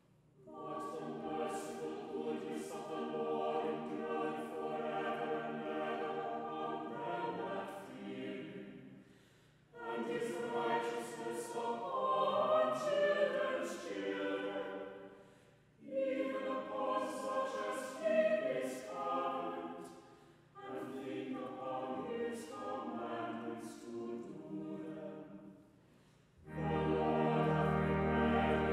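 Mixed church choir singing in several phrases of a few seconds each, with short breaks between them. The first phrases have no deep bass. Near the end a fuller passage begins with a deep, low sound beneath the voices.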